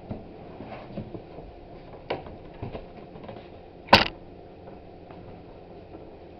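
A cardboard box and its packaging being handled and opened: a few light knocks and clicks, then one sharp, much louder knock about four seconds in.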